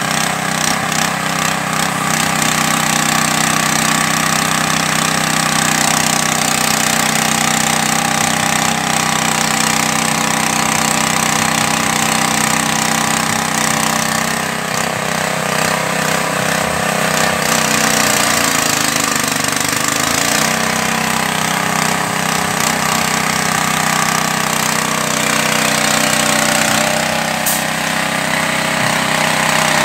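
Small engine running steadily, driving a fish-feed pellet extruder as it presses out floating pellets. Its pitch sags briefly about two-thirds of the way through, then recovers.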